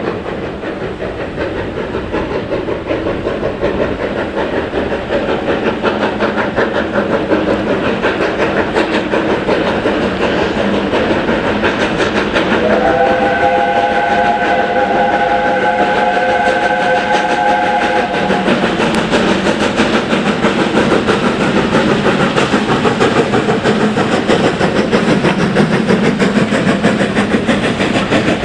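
USATC S160 2-8-0 steam locomotive working a train, its exhaust beats growing louder as it approaches. A little under halfway through it sounds a multi-note chime whistle, held for about six seconds. Near the end the coaches rumble past over the rail joints.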